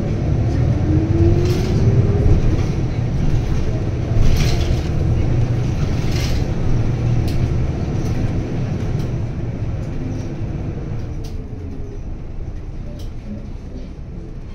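City bus drivetrain running inside the cabin as the bus drives on, with a whine rising in pitch as it speeds up during the first couple of seconds and a few sharp rattles. The engine eases off and the sound gets quieter over the last few seconds.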